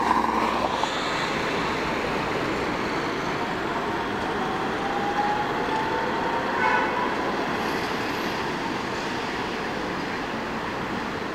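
A tram and city traffic passing on a street: steady road and rail noise, with a faint rising whine about halfway through and a brief higher tone just after it.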